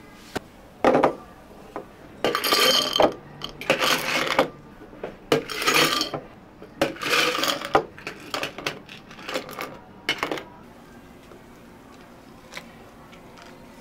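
Café drink-making sounds: cups, utensils and containers clinking and knocking, with four rattling bursts of about a second each in the middle, then a run of lighter clicks before it goes quieter.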